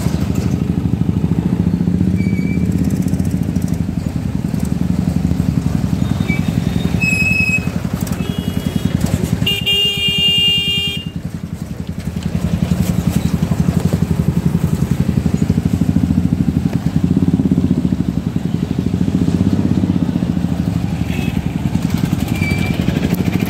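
Motorcycle engine running steadily at low speed. Vehicle horns honk several times in the middle, the loudest a longer blast about ten seconds in.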